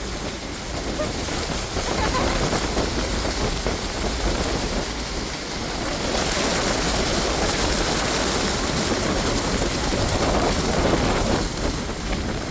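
Steady roar of Niagara Falls' falling water and spray heard up close from a boat, a dense even rush over a low rumble.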